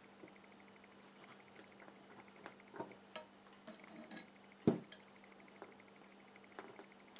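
Scattered light clicks and taps of small parts being handled: a small nut and carbon fibre frame plates being fitted together, with one sharper knock a little past halfway.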